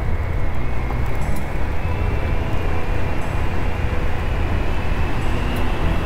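Steady riding noise from a Honda Trail CT125: wind rumbling on the microphone over the bike's small air-cooled single-cylinder engine running at an even pace.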